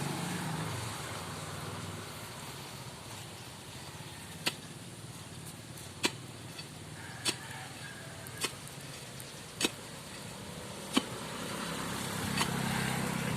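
Six sharp knocks about a second apart, typical of a hammer driving a nail into the bamboo fence, over a steady low background rumble.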